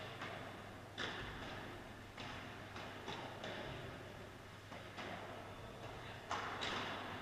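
Padel balls being struck by rackets and bouncing off court and glass, a string of sharp, irregularly spaced pops, about six, each ringing on in an echoing indoor hall.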